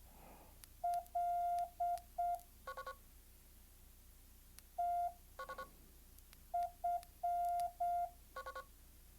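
Morse code beeps from a Morse code trainer app on a phone: a steady mid-pitched tone keyed in short dots and longer dashes, in three groups. The first group reads dot-dash-dot-dot, the second is a single element and the third reads dot-dot-dash-dot. Each group is followed by a short, buzzier triple pulse.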